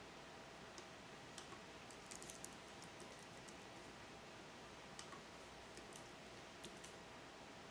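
Faint computer keyboard keystrokes, scattered taps with a quick run of them about two seconds in, over low room hiss.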